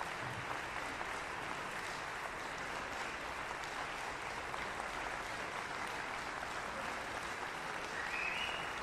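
Audience applauding steadily after a performance, a dense, even clapping that holds at one level.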